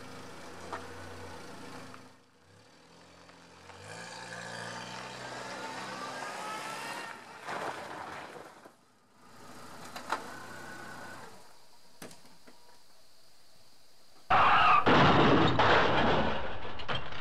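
Saturn S-Series car with its freshly rebuilt DOHC four-cylinder engine driving on gravel, heard in a few short clips, the engine note rising as it accelerates. Near the end a much louder, noisy sound takes over.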